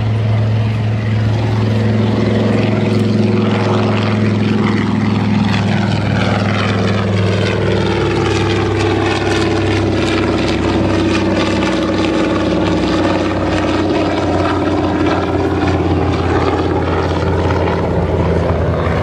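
Mitsubishi A6M Zero's radial engine droning steadily as the aircraft flies its display. A sweeping, phasing shimmer rises and falls across the sound from about four seconds in as the plane moves past.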